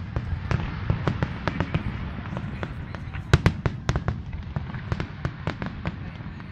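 Aerial firework shells bursting in rapid succession, a dense string of sharp bangs and cracks with a heavier cluster about three seconds in.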